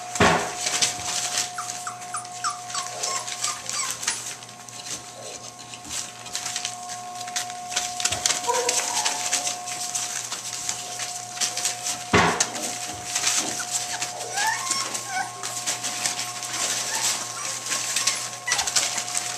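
A litter of puppies whimpering and yipping now and then as they eat kibble from a metal pan and scuffle about on newspaper, with constant small clicks and rustles and a sharp knock about twelve seconds in.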